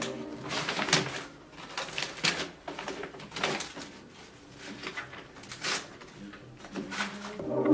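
Self-adhesive wallpaper rustling and crinkling as it is peeled from its backing and smoothed onto the wall by hand, in a series of separate rustles.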